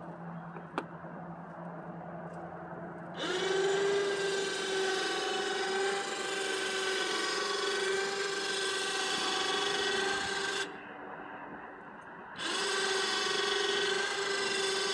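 Electric winch motor of a remote-controlled truck-bed crane running with a steady whine as it lowers a kayak. It starts about three seconds in, runs for about seven seconds, stops, then runs again for the last few seconds.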